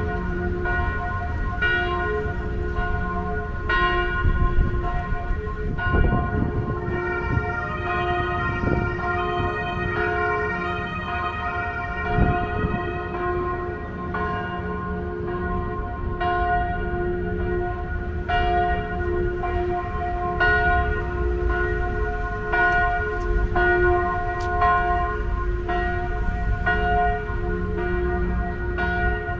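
Church bells pealing: several bells ring together, their tones struck again and again and overlapping throughout, over a low background rumble.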